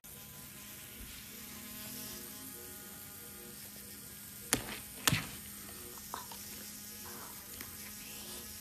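Electric toothbrush buzzing steadily while brushing a golden retriever's teeth, with two sharp clicks about halfway through.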